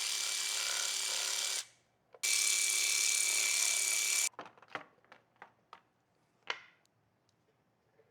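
A handheld power tool running in two steady bursts of about two seconds each, then a few light clicks and knocks of tools and parts.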